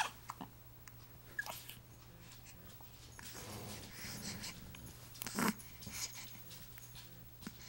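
A baby hiccuping, with soft breaths and small squeaks between the hiccups; the sharpest hiccup comes about five and a half seconds in.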